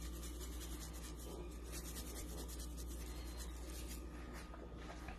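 Plastic spice shaker of chili-lime seasoning shaken over corn on the cob: a faint, fast, dry rattle of granules that dies away about four seconds in. A low steady hum runs underneath.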